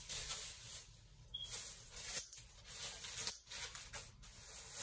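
Faint irregular rustling and handling noise, coming and going in short bursts, as of bags and packaging being moved about.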